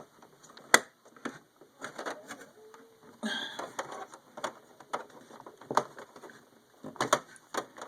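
Scattered clicks and knocks of handling at the back of an all-in-one computer, around its cables, with a brief rustle about three seconds in. The sharpest knock comes just under a second in, and a quick cluster of clicks comes near the end.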